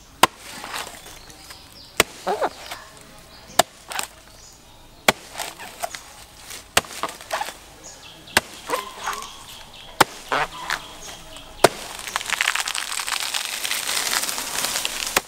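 A blade chopping into the fibrous trunk of a young palm: eight sharp chops about a second and a half apart, with smaller knocks of chips and pith between them. After the last chop, a long steady rustle of palm fronds fills the last few seconds as the cut palm comes down.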